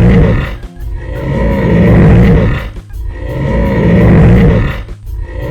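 A big cat roaring: three long, deep roars in a row, each about two seconds, with background music underneath.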